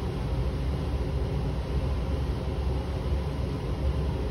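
Steady low rumble and rush of air from a laboratory fume hood's exhaust ventilation.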